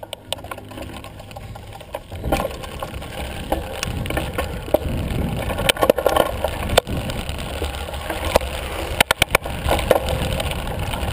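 Yeti ASR5 full-suspension mountain bike rolling down a gravel dirt road, heard from a camera mounted on the bike: a steady rumble of tyres and wind, with sharp clicks and rattles from the bike over bumps. The rumble gets louder about two seconds in, and a quick burst of several clicks comes about nine seconds in.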